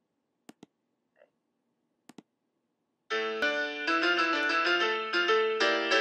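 Near silence broken by two quick pairs of clicks, then piano music begins about three seconds in, with a dense run of notes.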